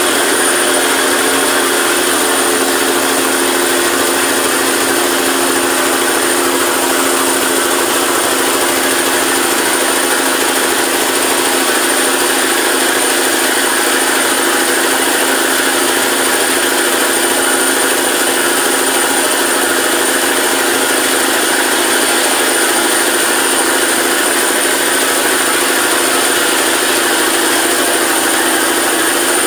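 A vehicle's engine running steadily as it drives through deep floodwater, mixed with the rush and churn of muddy water breaking against its front. The sound is constant and unchanging, a steady drone under a wide wash of water noise.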